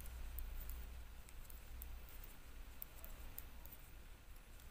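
Knitting needles clicking faintly and irregularly as stitches are purled along a row, over a low steady hum.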